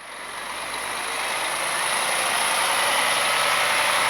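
A large vehicle's engine and road noise, a steady rushing that grows louder over the first two seconds and then holds steady.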